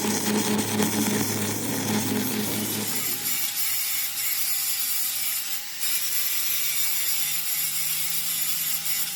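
Workshop machinery running with mechanical rattling and scraping: a steady low hum for about the first three seconds, then a steady whine over the clatter.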